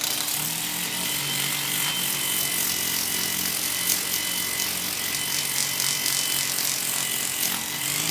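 A rotary tool running steadily with a grey abrasive cylinder on its mandrel grinding against a silver spoon: a steady high whine over a grinding hiss.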